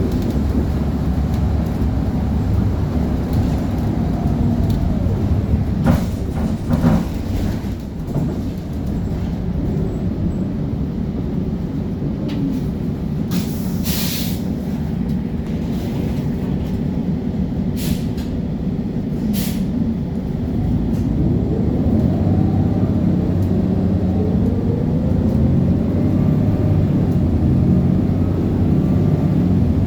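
Diesel transit bus engine running, with short bursts of air-brake hiss a little past the middle, then rising whines near the end as the bus accelerates away through its gears.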